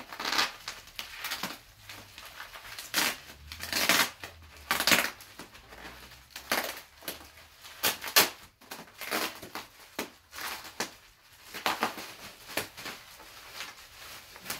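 Bubble wrap crinkling and rustling in irregular bursts as it is pulled and crumpled off a packed sign.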